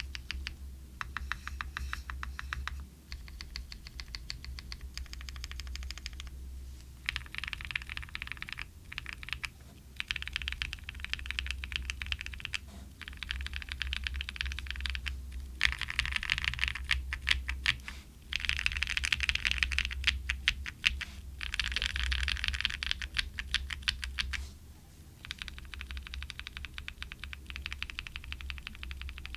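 Typing on a gasket-mounted Tofu60 2.0 mechanical keyboard with Lichicx XCJZ Purple Bamboo tactile switches, a polycarbonate plate and EPBT Sav-81 PBT keycaps. The keystrokes come in runs of quick clacks with brief pauses between them, and are fastest and loudest in the middle stretch.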